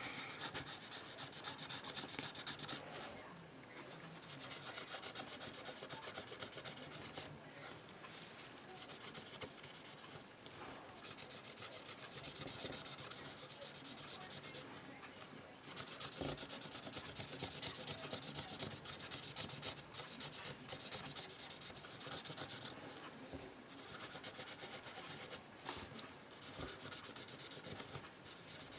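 Sharpie marker scribbling back and forth in fast strokes, colouring a surface in black, with a few short pauses between bouts.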